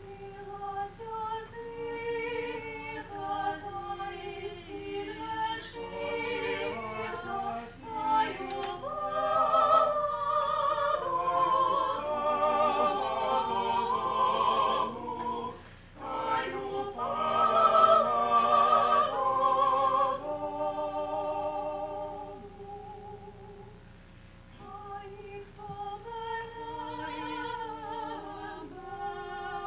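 A Ukrainian vocal ensemble of men and women singing in several-part harmony, swelling louder through the middle with a brief break about sixteen seconds in, then softer before rising again near the end. The sound is dull, with no high treble, as from an old videotape recording.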